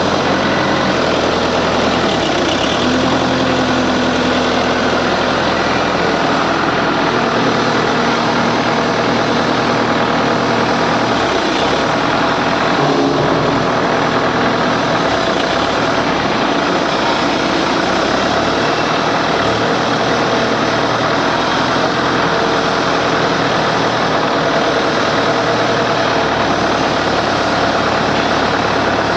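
Forklift engine running, its low hum shifting in pitch every few seconds as the engine speed changes, under a steady loud industrial din.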